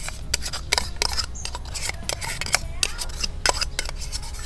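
A metal spoon scraping sauce out of a small plastic bowl and clinking against it and a stainless-steel mixing bowl: irregular clicks and short scrapes.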